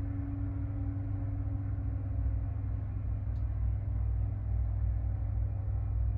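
Elevator running: a steady low rumble and hum, with a higher tone that fades away over the first two or three seconds and a faint click about three seconds in.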